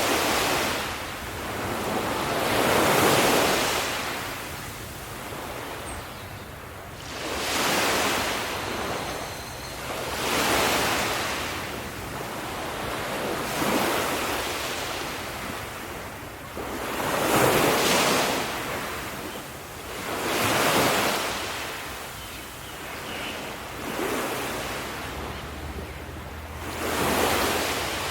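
Ocean waves breaking on a shore, one after another. Each wave's wash swells and fades over a few seconds, a new one every three to four seconds.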